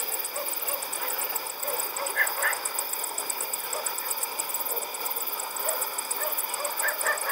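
Night insects chirping in fast, even high-pitched pulses, several a second, over a steady high trill, with faint short calls twice in pairs.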